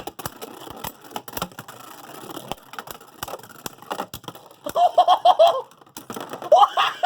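Beyblade spinning tops launched into a plastic stadium with a sudden burst, then spinning and clashing with many sharp clicks and knocks. Laughter breaks in about five seconds in and again near the end.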